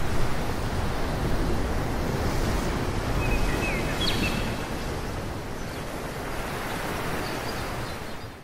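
Steady rushing wind noise, heaviest in the low end like wind buffeting a microphone, with a few brief high chirps about three to four seconds in. It cuts off abruptly at the end.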